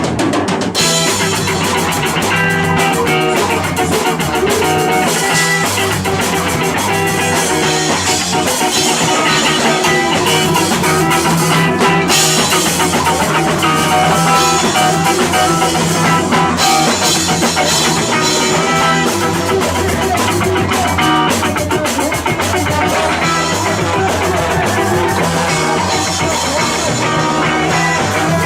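Live skacore band playing loud and steady on electric guitar and drum kit, with no singing.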